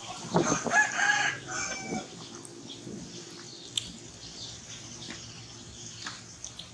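A rooster crowing once, a held call of about a second and a half near the start, over quiet yard background.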